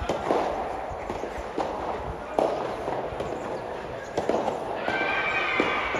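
Sharp pops of a rubber soft tennis ball being struck by rackets and bouncing on the court during a rally, spaced a second or so apart. Voices shouting come in near the end.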